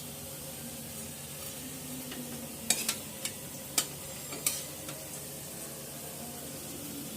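Chilli garlic potato bites sizzling steadily as they fry in oil, with a few sharp clicks of a utensil against the pan near the middle.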